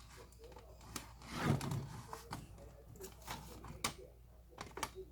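Scattered light clicks and taps of plastic laptop parts being handled during disassembly, with one louder scrape or knock about one and a half seconds in.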